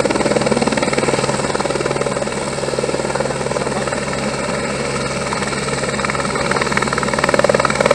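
Firefighting helicopter hovering low over the river with its water bucket slung beneath, filling the bucket. Its rotor beats steadily and rapidly throughout.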